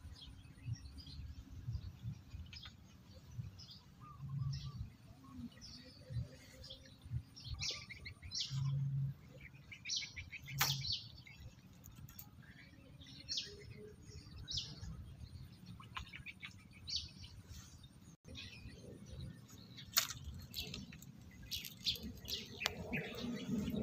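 Small birds chirping in short calls on and off, faint, over a low rumbling background, with a couple of sharp clicks about halfway and again later.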